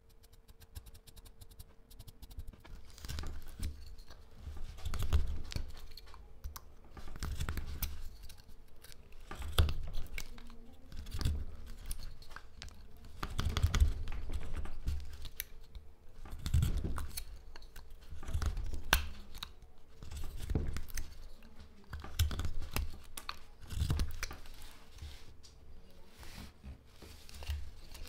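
Carving knife cutting into hard black locust (Robinia pseudoacacia) wood: a run of short, crisp slicing and cracking strokes, about one every second or two, as chips are cut away. A faint steady hum sits underneath.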